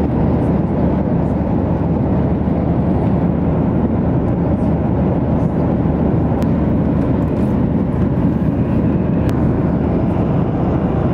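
Jet airliner cabin noise in flight: a loud, steady, deep rush of engines and airflow, with no change in pitch.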